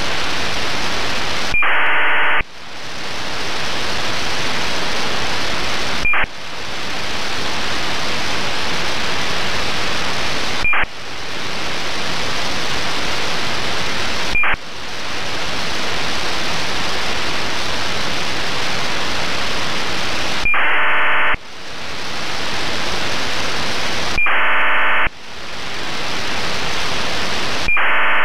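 AM radio static from an RTL-SDR receiver tuned to the 131.550 MHz ACARS channel, broken by short bursts of ACARS data tones sent from an aircraft. Four bursts of under a second each come about two seconds in and then three near the end, with three brief blips in between. After each burst the hiss drops away and swells back up.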